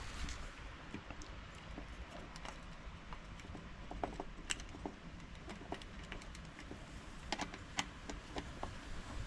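Hands working small parts and wires at a doorbell's wiring terminals: scattered light clicks and taps, irregular, sometimes several a second, over a faint low rumble.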